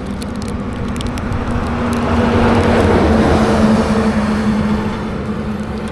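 Motorcycle cruising on a highway: a steady engine note under heavy wind noise, with a rush of noise that swells and fades through the middle.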